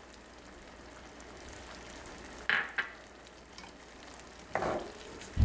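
Pan of sliced peppers, onion and carrot in vinegar and water sizzling over the heat, a soft steady hiss. A couple of short clatters come about two and a half seconds in and again near the end, the last a low thump.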